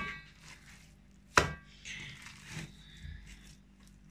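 Minced meat being mixed by hand in an enamel bowl: two sharp slaps about a second and a half apart, each with a brief ring from the bowl, and soft squelching of the mince between them.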